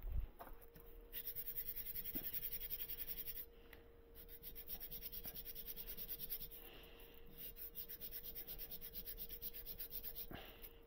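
Small engraved printing plate rubbed by hand back and forth on sandpaper laid flat on a stone slab: a steady rapid scratching, pausing briefly about a third of the way in. The plate face is being sanded flat to thicken its thin engraved webs.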